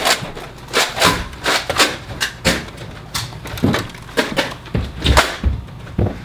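Irregular knocks, clicks and thumps, a few a second, with the heaviest thumps about five seconds in.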